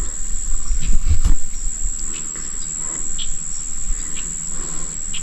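Outdoor creekside ambience: low rumbling with a couple of knocks about a second in, over a steady high-pitched insect drone.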